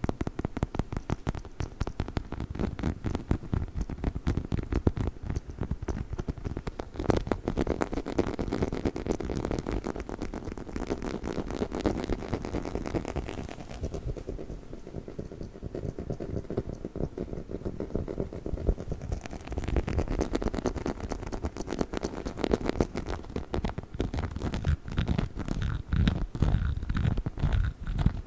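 Close-miked handling of a chicken-shaped dog toy: a continuous rapid patter of small taps and scratches, with the brighter part of the sound dropping back for a few seconds around the middle.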